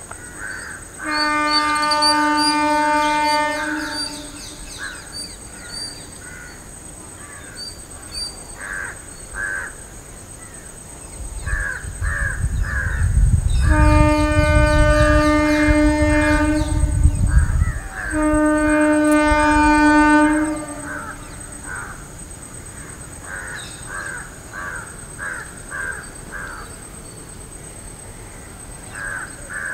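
Electric locomotive's air horn sounded three times: one long blast about a second in, then two more close together around halfway, over the rumble of the approaching train. Crows caw throughout, and a faint steady high whine runs underneath.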